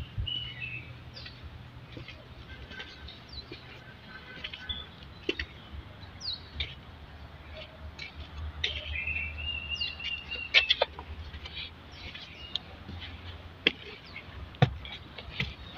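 Small birds chirping: many short, quick downward-sliding chirps and a couple of longer warbled phrases, over a low steady rumble. A few sharp clicks or knocks stand out, the loudest about ten seconds in and another near the end.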